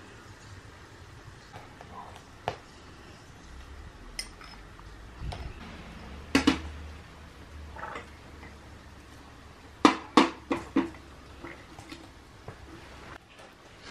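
Kitchenware clinking: a glass bowl, sieve and spoon knocking against each other and against the lid of an aluminium pot. There are a few scattered clinks, a louder pair about six seconds in and a quick run of four around ten seconds in, over a low steady hum.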